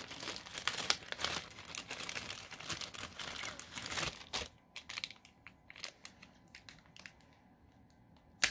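Plastic packaging crinkling and rustling as it is handled and pulled open, then scattered small clicks and rustles, and one sharp snap near the end.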